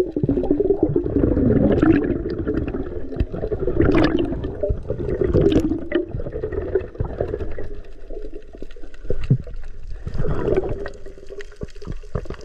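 Muffled underwater water noise with bubbling and gurgling and scattered small clicks, heard from below the surface as a diver swims down.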